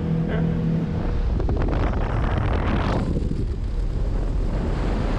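Motorboat running across the water: a steady engine hum under the rush of water and wind buffeting the microphone. About three seconds in, the sound changes to a fuller rush of wind and water as the boat speeds past.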